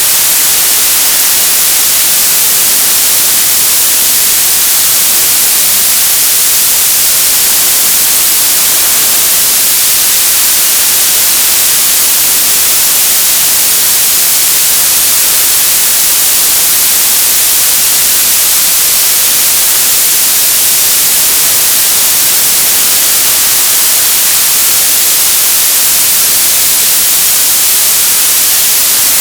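Loud, steady TV static: an even hiss that is bright and treble-heavy and does not change.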